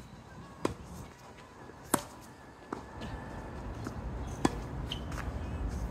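Tennis balls striking a hard court and rackets: about four sharp, separate pops at uneven intervals, the loudest about two seconds in, over a faint low rumble.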